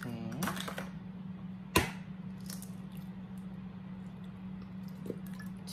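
An egg rapped once on the rim of a glass mixing bowl, a single sharp crack about two seconds in, with faint shell and handling ticks over a steady low hum.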